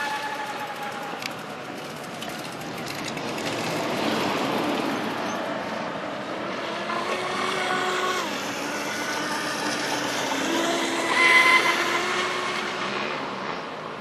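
Brushless electric motor of an RC offshore twin-hull catamaran running at speed on 6S power: a whine that rises and falls in pitch with the throttle, over the hiss of hull and spray. It is loudest about eleven seconds in, as the boat comes back closer.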